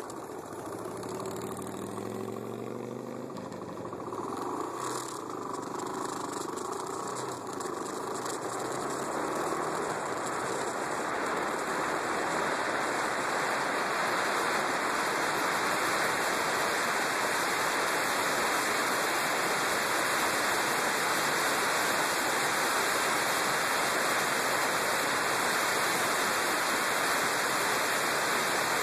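Yamaha WR250X's single-cylinder engine pulling away and accelerating, its pitch rising in a few steps through the gears over the first ten seconds or so. After that a steady rush of wind on the microphone at cruising speed covers it.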